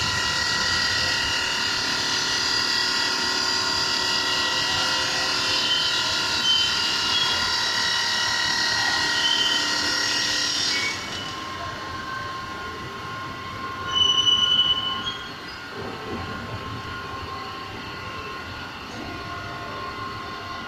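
Stone-cutting saw for granite and marble running with a steady, high, screeching whine. The sound drops in level about halfway through, and a brief louder squeal comes a few seconds later.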